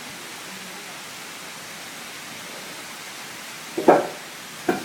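Steady hiss of rain falling. Near the end come two short, loud sounds, a little under a second apart, the first the louder.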